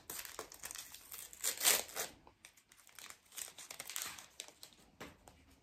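Paper-and-foil wrapper of an Adrenalyn XL trading-card pack being torn open and crinkled by hand as the cards are pulled out, in a few separate spells of rustling, the loudest about two seconds in.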